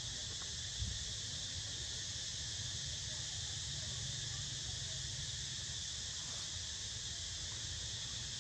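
Steady high-pitched chorus of insects, with a single soft knock about a second in.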